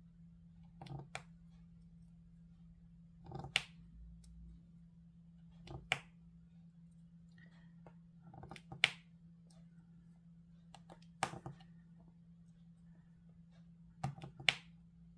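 Diamond-painting drill pen placing resin drills on the canvas: short, sharp clicks, about one every two to three seconds.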